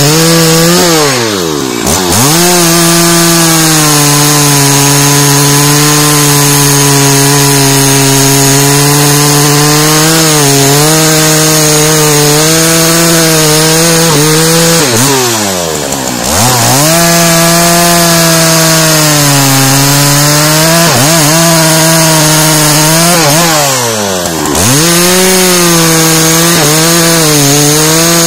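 Dolmar 7900 79 cc two-stroke chainsaw cutting into the trunk of a large, very hard beech, running loud and steady at high revs under load. Three times the engine note drops sharply and climbs straight back up before the cut goes on.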